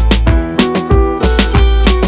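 Background music with a steady beat, sustained pitched notes and heavy bass.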